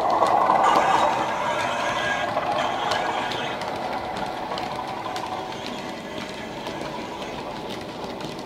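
Model Class 37 locomotive's DCC sound decoder playing diesel engine sound through its Megabass speaker. It is loudest as the locomotive passes in the first second, then fades as it moves away. Small clicks from the wagons' wheels on the track run under it.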